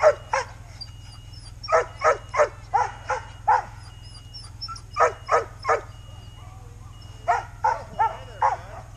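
Sled dogs in harness barking in quick volleys of three to five barks, with pauses of about a second between volleys, while the team stands halted on the trail.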